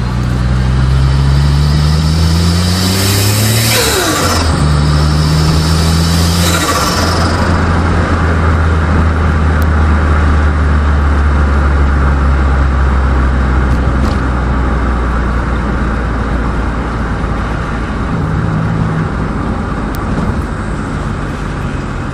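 Turbocharged Daihatsu L7 pulling away, its engine rising in pitch as it accelerates. About four and six and a half seconds in, the engine note drops at gear changes, each time with a hissing burst of turbo flutter. It then settles into a steady cruise.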